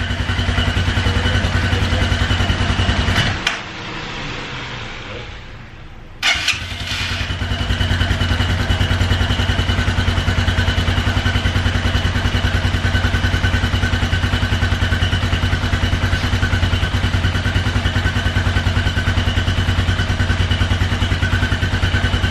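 The 230 cc single-cylinder engine of a brand-new CSC SG250 San Gabriel motorcycle runs for a few seconds just after its first start, then cuts out. About six seconds in it starts again and settles into a steady, evenly pulsing idle.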